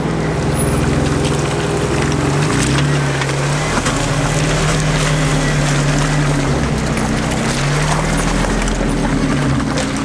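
Jeep Wrangler's engine pulling under load as it tows an off-road camper trailer through mud, the engine note shifting a few times, with tyres churning through the mud and puddles.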